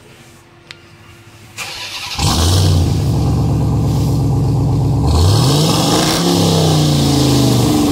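Ram TRX's supercharged 6.2-litre Hemi V8 cranking and catching about two seconds in, then running loud at a fast idle through the exhaust, with one rev about five seconds in before it settles.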